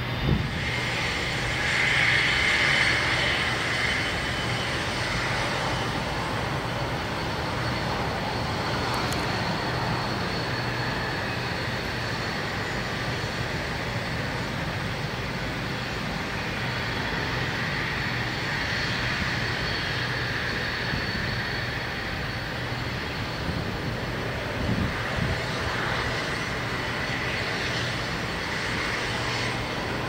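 Avro RJ100's four Honeywell LF507 turbofans running at low taxi power as the airliner taxis, a steady jet whine over a low hum.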